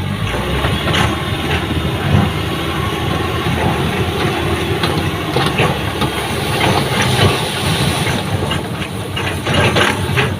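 Heavy diesel engines running steadily, from a truck and an excavator working to free the truck from soft ground, with a few sharp knocks.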